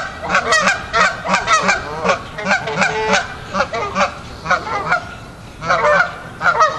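A flock of geese honking, many short calls overlapping several times a second, easing briefly about five seconds in before picking up again.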